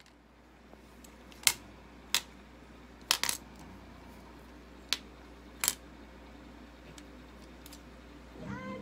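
Small hard objects clicking and clinking against a table-top as a toddler handles things on it: about six sharp separate clicks at uneven intervals, with a quick cluster of three about three seconds in, over a faint low hum.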